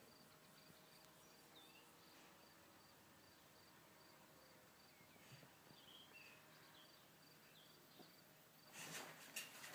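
Near silence with a faint cricket chirping steadily, about three chirps a second, and a few faint bird chirps. A few louder bursts of noise come in near the end.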